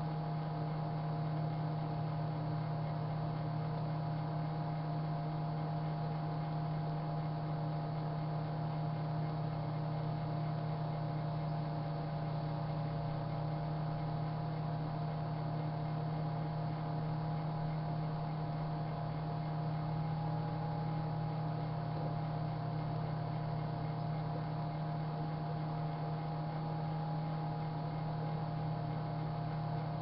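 Sharp Carousel microwave oven running, a steady electrical hum with a few constant higher tones, while heating a container of liquid hand soap.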